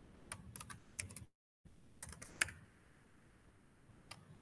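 Faint computer keyboard typing: scattered keystrokes in quick little clusters, with the audio cutting out completely for a moment about a second in.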